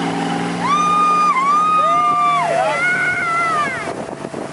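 Motorboat engine running steadily under tow, with people on the boat letting out long, high-pitched overlapping "woo" cheers as the water-skier comes up.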